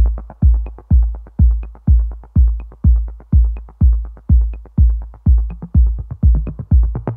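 Electronic dance music intro: a deep kick drum on a steady beat about twice a second, with a light click on every other beat.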